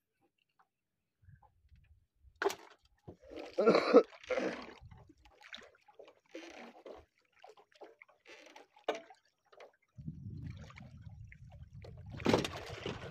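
Scattered knocks and rustles of a hooked longline being hauled and handled in a wooden boat, with the loudest handling noises around four seconds in. From about ten seconds in, water sloshes low and steady against the hull, and a splash at the boat's side comes near the end.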